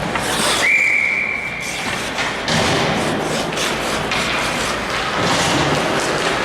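A referee's whistle blown once, a steady high blast of just over a second, over the din of an ice rink. After it come repeated knocks and clatter.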